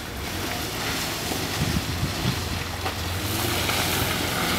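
An off-road 4x4's engine running steadily, with wind noise on the microphone building about a second in.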